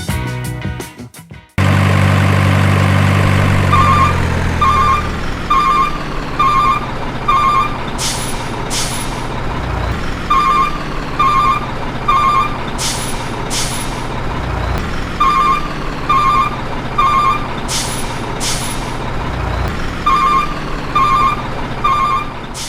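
Truck sound effects: a diesel engine starts and runs, then a reversing alarm beeps in runs of double beeps. Each run is followed by two short air-brake hisses, and the cycle repeats about four times.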